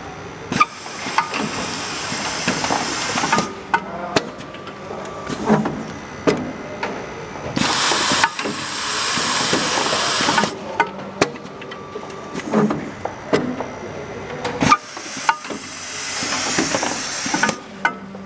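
Thimonnier SF10 doypack filling and capping machine running. Its mechanism makes irregular sharp clicks and knocks, and three long hisses of compressed air come and go, each lasting about three seconds.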